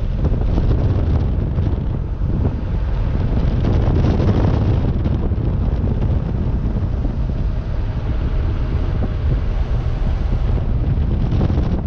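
Wind buffeting the microphone in the open cabin of a moving 1972 Porsche 914-6, over the steady running of its 2.7-litre twin-plug flat-six and road noise. The wind swells a little about four seconds in.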